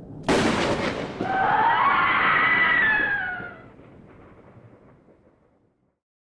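Spooky intro sound effect: a low rumble, then a sudden thunder-like crash, followed by a long wailing cry that falls in pitch and fades away over a few seconds.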